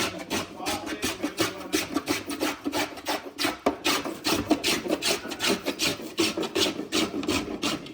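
Wood being worked by hand with quick, even rasping strokes, about four a second.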